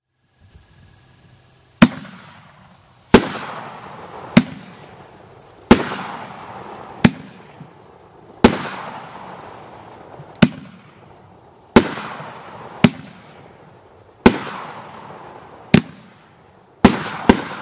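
World Class Fireworks Honey Badger 500-gram cake firing shot after shot: a sharp bang every one to two seconds, about thirteen in all, each trailing off in a long echoing rumble. It starts about two seconds in, and two bangs come close together near the end.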